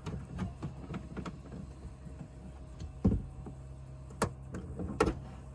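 The knob-tightened dogs and frame of a boat's hinged windscreen window being turned and worked loose: a run of small clicks and taps, with a sharp click just after four seconds and two louder knocks about three and five seconds in.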